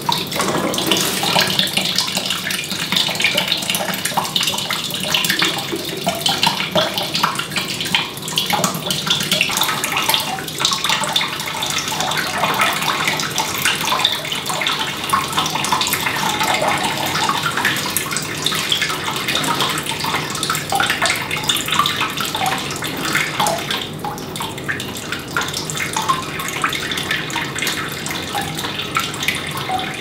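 Water pouring and splashing steadily. It starts abruptly as the plastic watering can begins to pour, then runs on with trickling and splashing.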